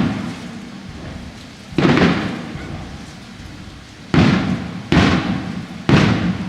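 Fireworks shells bursting in a series of booms, each one sudden and then fading over about a second with a rumbling tail; four bursts, about two, four, five and six seconds in.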